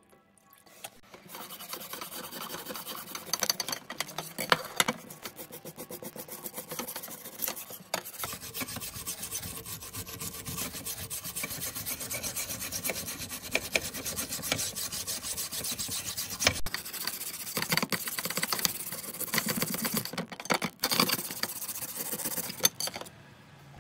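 A flat abrasive block scrubbing back and forth along a rusty steel knife blade under water in a metal tray, grinding off the rust in a continuous gritty scrape. The scrubbing starts about a second in and runs in several stretches that break off abruptly.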